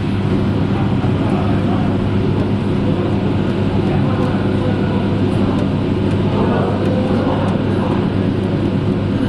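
Steady low hum of running electrical machinery, with an even rushing noise over it, around the electrical cabinet of a fiber laser welding machine.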